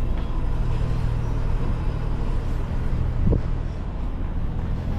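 Steady low rumble of city street traffic, with a brief thump about three seconds in.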